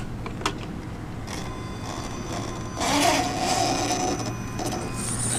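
Electric motor and gear drivetrain of a scale RC rock crawler whining as it climbs over a rock, getting louder about three seconds in.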